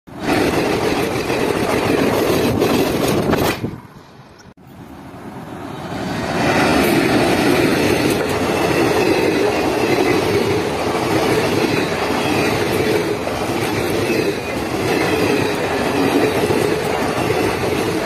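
Indian Railways passenger train running past close by, its coaches' wheels running on the rails. The sound drops away sharply a little under four seconds in, then builds back up over the next two seconds and holds steady as the coaches pass.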